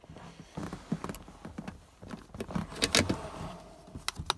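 Handling noise of a phone being moved and set in place: a run of small knocks, rattles and clicks, loudest about three seconds in, with a couple of sharp clicks near the end.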